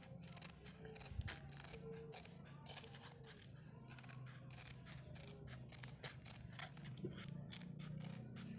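Scissors snipping in a quick, irregular series of cuts, trimming the edges of a sandpaper sheet glued onto a sanding block.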